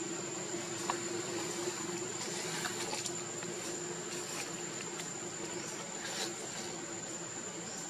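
Insects buzzing in one steady high-pitched tone, over a low steady hum, with a few faint short ticks.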